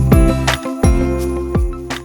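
Background music: bright struck notes repeating every half second or so over held tones, beginning to fade near the end.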